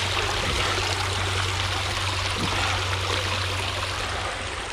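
Rain-swollen creek water running steadily past, an even rushing sound with a steady low rumble underneath.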